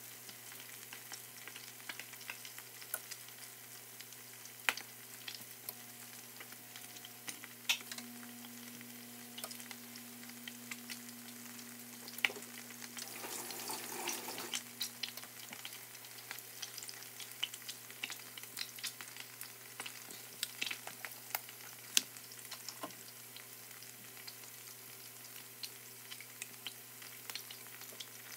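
Melted butter sizzling quietly in a frying pan, with many scattered small pops and crackles. A brief louder rush of noise comes about halfway through.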